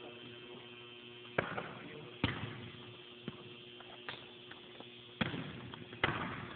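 A basketball bouncing on a hardwood gym floor: several separate bounces at uneven intervals, each echoing in the gym, over a faint steady hum.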